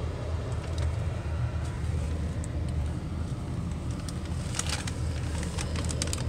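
Steady low rumble of a vehicle in motion, with a few light clicks about four and a half seconds in.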